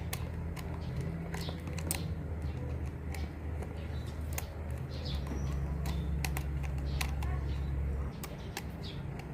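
Scattered light clicks and taps of a small portable chainsaw's bar, chain and parts being handled and adjusted, over a steady low hum that cuts off suddenly about eight seconds in.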